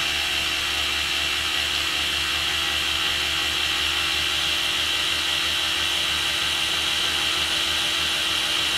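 Snap-on 14.4 V cordless electric ratchet running at full speed with no load, a steady motor whine with a high buzz. It stops abruptly near the end. The head is wrapped in a shop towel, and the ratchet is being run to spin out excess fresh grease from the head.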